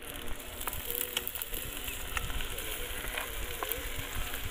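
Sliced onions sizzling and frying in hot oil in an aluminium kadhai, stirred with a wooden spatula, with a few sharp clicks along the way.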